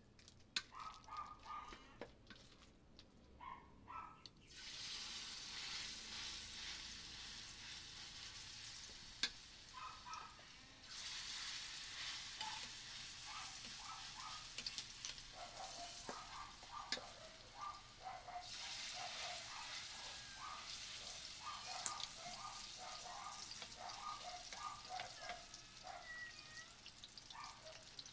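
Banana and sweet potato fritter batter sizzling as it fries in hot oil in a small pan, with a spatula stirring it. The sizzling starts about four seconds in and surges twice more, at about eleven seconds and again near nineteen.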